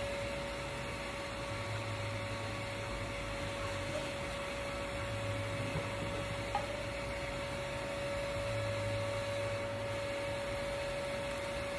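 Steady background hum with a faint constant tone and a low rumble that swells and fades every few seconds; one small click about six and a half seconds in.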